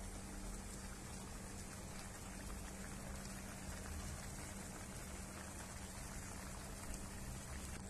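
Meat pieces in a thick white sauce simmering in a frying pan: a steady crackle of small bubbles popping.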